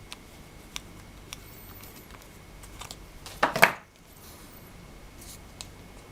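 Handling sounds while contact glue is spread on a LiPo battery: scattered faint clicks and taps, and a short, louder scraping rustle about three and a half seconds in.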